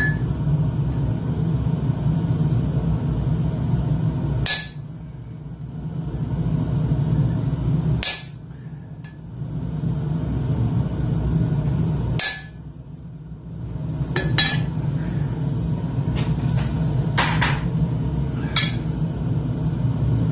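Hammer blows on hot steel bar stock at the anvil: six separate strikes spread out, over a steady low rumble.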